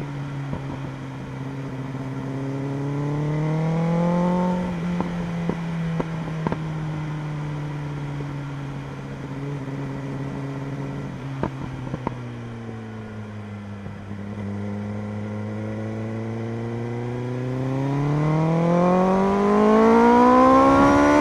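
BMW M1000RR's inline-four engine on the move: steady running with a short rise in revs about four seconds in, the revs falling away around twelve seconds in, then a long steady climb in revs over the last few seconds as the bike accelerates.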